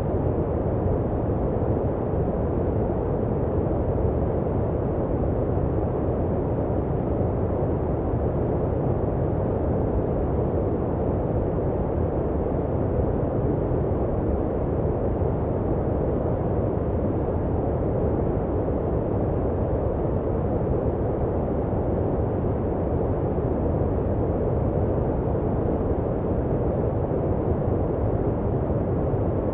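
Steady, unbroken synthetic noise from a white-noise sleep track. It sounds deep and muffled rather than hissy, with most of its weight in the bass and little treble, and it does not change at all.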